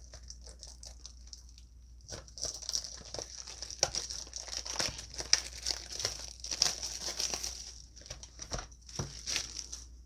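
Plastic shrink wrap being torn and crinkled off a trading-card booster box. There are faint rustles at first, then dense crackling with sharp crinkles from about two seconds in.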